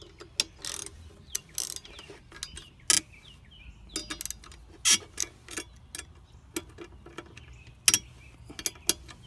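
Hand socket ratchet clicking in short, irregular runs as 11 mm bolts are tightened down on a fuel lift pump's mounting bracket, with a few sharper, louder clicks among them.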